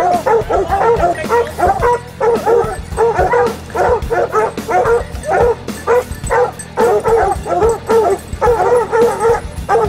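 A pack of cougar hounds baying and barking without pause, many voices overlapping in quick, rising-and-falling bawls.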